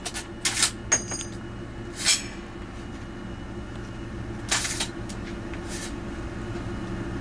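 Steady machine hum, with a few short clinks and rattles of handled metal at about half a second, one second, two seconds and four and a half seconds in.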